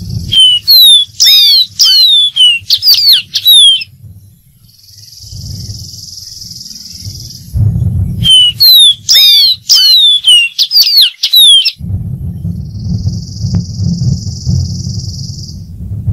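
Dark-throated seedeater singing: two song phrases of about three and a half seconds each, built of quick, sharply down-slurred whistled notes. Between the phrases there is a steady high hiss, and a low rumble runs under the last few seconds.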